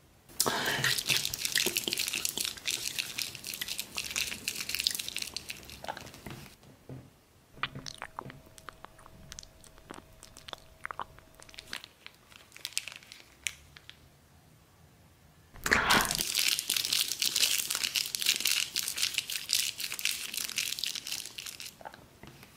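Plastic sauce sachets crinkling and crumpling in two long bouts, one starting about a second in and another about two-thirds of the way through. Between them come scattered soft clicks as a sachet is squeezed out over the noodles.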